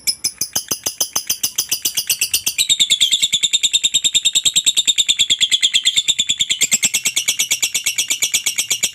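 Lovebird's long 'ngekek' chatter: a fast, unbroken rattle of short, high, sharp notes, about ten a second, that quickens and grows louder about two and a half seconds in.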